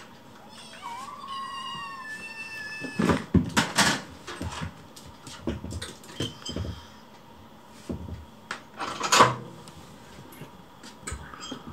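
A kitten meows once, a drawn-out call that falls slightly in pitch, then a run of knocks, clatters and rustles from kittens scrambling onto a stool and from food being prepared, with one especially loud clatter past the middle.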